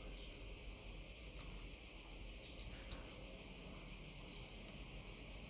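Quiet background: a faint steady high-pitched hiss with a low hum beneath it, and a couple of faint ticks about halfway through.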